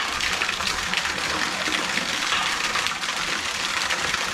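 Steady rushing water noise.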